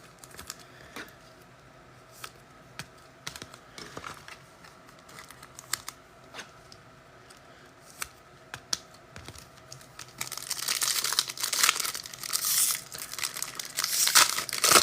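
Small clicks and taps of trading cards being handled, then about ten seconds in a card pack's wrapper is torn open and crinkles for several seconds.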